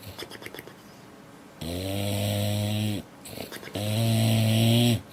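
A sleeping dog snoring: two long, loud snores, each a steady low buzz lasting over a second, with faint clicking breaths between them.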